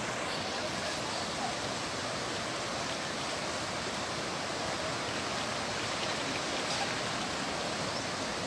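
Flash-flood torrent rushing past in a steady, unbroken rush of water.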